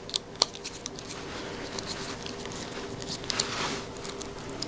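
Small hand tools at work on little screws and plastic printer parts: scattered light metal clicks and taps from a screwdriver and hex driver, with a brief rustle of handling about three seconds in, over a faint steady hum.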